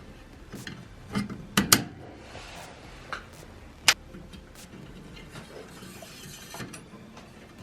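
Handling noise of tools and parts during boiler control wiring: a few sharp clicks and knocks, the loudest a quick double click about a second and a half in and a single sharp click about four seconds in, with light rubbing between.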